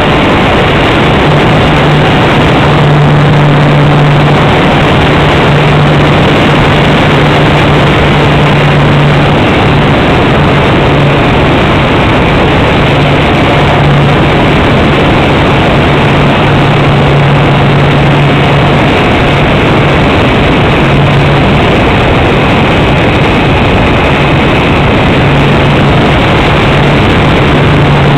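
Nose-mounted propeller and motor of a radio-controlled glider heard from an onboard camera, with loud wind rush over the microphone. A steady low hum from the propeller fades in and out several times.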